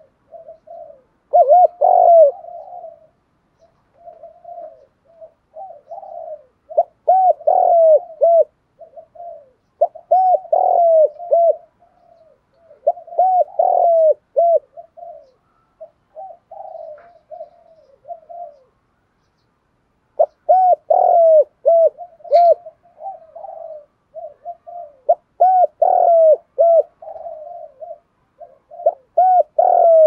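Spotted dove cooing in repeated phrases of several quick coos every few seconds, with a short pause a little past the middle.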